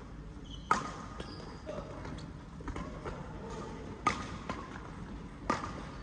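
Badminton rackets striking a shuttlecock in a doubles rally: sharp cracks that ring briefly in a large hall. The loudest come about a second in, near four seconds and near five and a half seconds, with a few fainter hits between.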